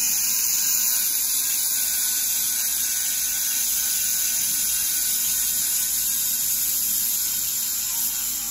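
Leapion handheld fiber laser welding gun welding a seam on metal plate: a steady high-pitched hiss and whine.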